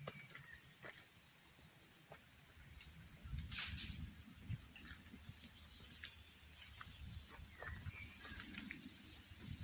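Outdoor nature ambience: a steady high-pitched hiss throughout, with a few short bird chirps and light clicks.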